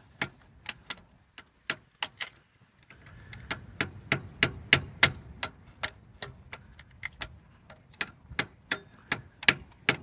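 Hammer tapping a screwdriver held against the carburetor's mixture-screw caps, trying to knock the caps out: a quick, uneven run of sharp metallic taps, about three a second, with a short pause about two seconds in.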